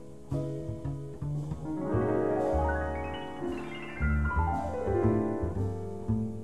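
Small-group jazz recording: piano playing over double bass. The piano climbs in a quick run about two seconds in, then steps back down over the next two seconds.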